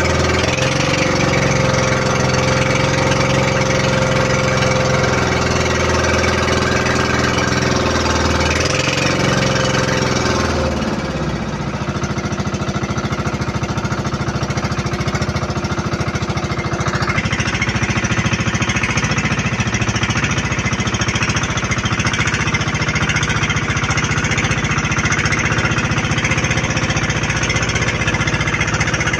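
Outrigger boat's engine running with a rapid, even firing beat. About eleven seconds in its pitch drops and the sound dips briefly, then it settles at a lower, steady speed.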